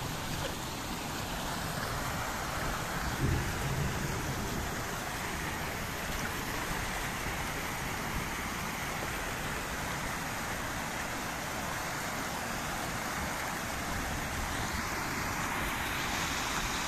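Muddy storm runoff rushing and splashing down an eroded earth channel from a small dam's concrete outlet: a steady rush of water.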